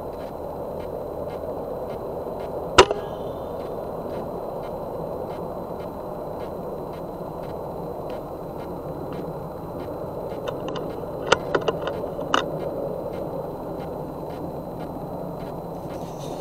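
A single shot from a .30-calibre FX Wildcat MK II PCP air rifle about three seconds in, a sharp crack over steady background noise. A few quick clicks follow about eleven to twelve seconds in.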